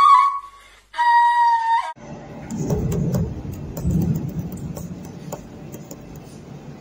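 A flute playing held notes, breaking off and ending abruptly about two seconds in. After it, a low rumbling noise that swells twice and then fades, with faint clicks.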